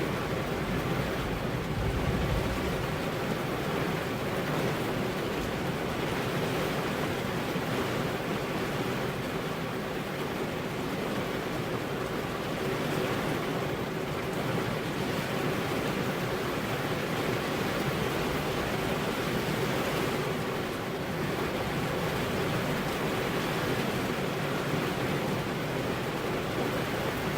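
Rain falling steadily on a car's window glass, an even, unbroken hiss.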